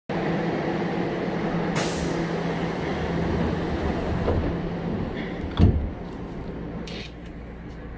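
Keihan 5000 series commuter train standing at a platform with its door open: a steady hum, a short hiss of air about two seconds in, then the sliding door thuds shut about five and a half seconds in. The hum drops once the door is closed, and another brief hiss of air follows near the end.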